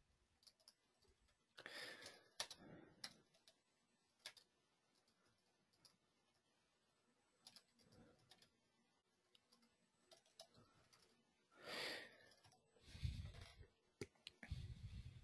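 Faint, scattered clicks of a computer keyboard and mouse in near-quiet room tone, with a few low thumps near the end.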